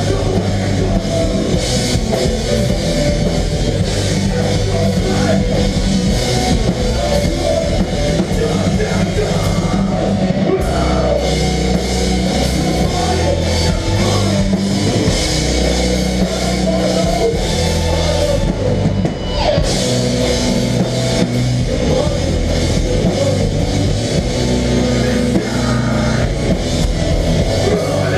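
Melodic hardcore band playing live: distorted electric guitars and bass chords over a steady drum kit beat, with no vocals.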